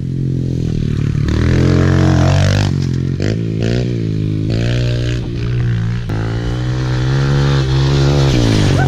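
Small single-cylinder four-stroke Kawasaki KLX pit bike engine revving, its pitch climbing and dropping several times as the rider works the throttle and gears through the turns.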